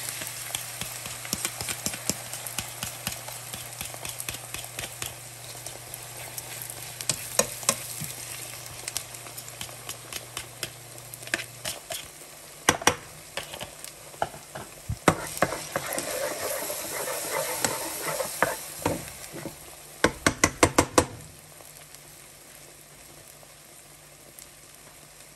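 Beaten eggs sizzling as they fry over onions in a hot nonstick frying pan, with a spatula scraping and clicking against the pan as they are stirred. About twenty seconds in comes a quick run of about six sharp taps, and after that the sizzle is quieter.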